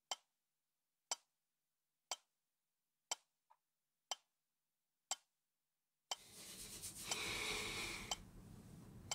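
Clock ticking sound effect: six sharp ticks, one a second, in silence. About six seconds in, a sudden rush of noise swells and holds for about two seconds, then drops lower.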